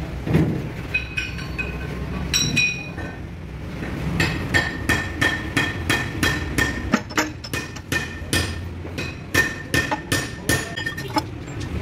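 Repeated sharp metal strikes, about three a second from around four seconds in, each ringing briefly at the same pitch, with a few lighter, higher-ringing clinks before them. A low rumble runs underneath.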